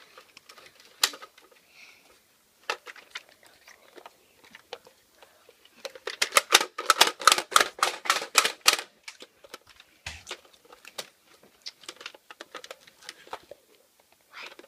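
Nerf blasters being reloaded: scattered sharp plastic clicks, with a fast, loud run of clicking lasting about three seconds in the middle.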